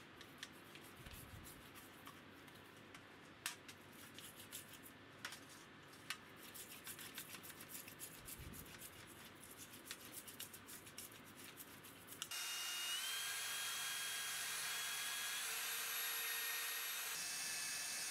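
A toothbrush scrubs a rusty metal plate in a metal tray, with scattered clicks and then quick, scratchy strokes. About twelve seconds in, a cordless drill fitted with a small abrasive polishing wheel starts up and runs steadily with a whine that steps up in pitch twice, buffing rust off the plate.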